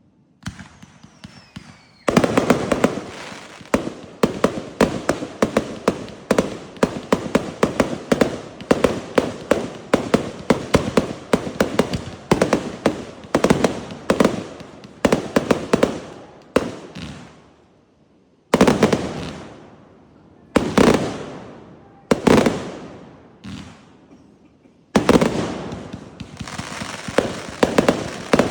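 Fireworks going off: a fast, dense string of sharp cracks and bangs starting about two seconds in. After the middle it breaks into a few separate loud volleys with short pauses between them, then turns to rapid cracking again near the end.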